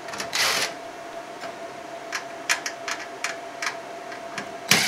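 Scattered clicks and taps of a cordless drill-driver's bit and screws against a laser printer's sheet-metal chassis during screw removal. There is a short rasping burst about half a second in and a louder sharp click just before the end, over a faint steady tone.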